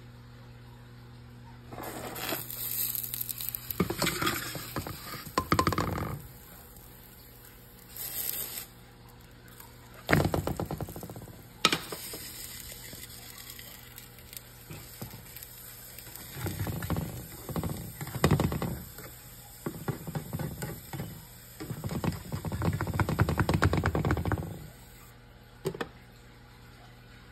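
Spatula scraping and knocking against a nonstick frying pan while a pancake is flipped and handled, in several irregular bursts of a few seconds each.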